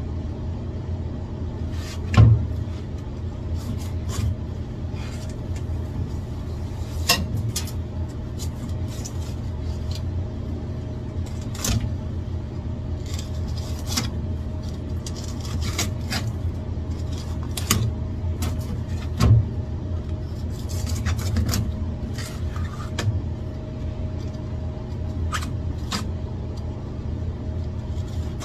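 Knife filleting a whole snapper on a cutting board: irregular crackling and scraping strokes as the blade cuts through scales, skin and flesh, with a few sharper knocks, the loudest about two seconds in and again around nineteen seconds. A steady low machine hum runs underneath.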